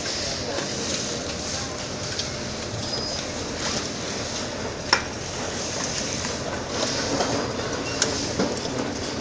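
Steady background noise of a working assembly workshop, with a few sharp clicks, the clearest about five seconds in and again near the end.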